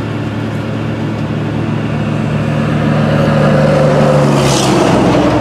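A motor vehicle passing on the road, over a steady engine hum. It grows louder for about four seconds and drops in pitch as it goes by.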